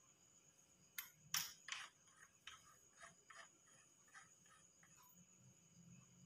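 Faint handling clicks and taps of small hard objects: a few sharp clicks about a second in, then lighter scattered ticks, over near-silent room tone.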